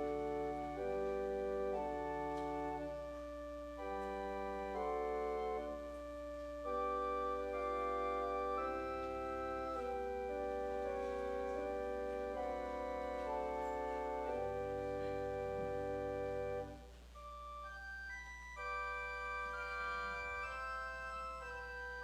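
Organ playing slow music in held chords over a sustained bass line. About three-quarters of the way through the bass drops out and the music goes on softer in the upper notes.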